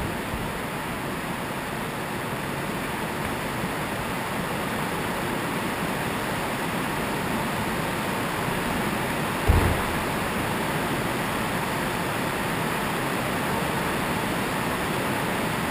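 Steady even hiss of room and microphone noise in a large gym. About nine and a half seconds in there is one heavy thud, a body landing on the gym's sprung floor after a wall flip.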